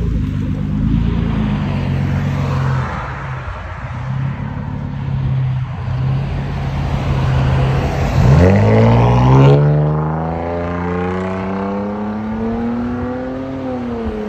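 2017 Nissan Maxima's 3.5-litre V6, straight-piped with its mufflers deleted and a Vibrant resonator, running low and steady, then about eight seconds in it accelerates hard, the exhaust note rising sharply and then climbing steadily as the car pulls away.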